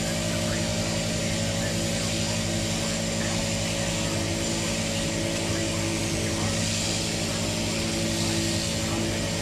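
Electric sheep-shearing gear running steadily: an even machine hum with a hiss over it, unchanging throughout.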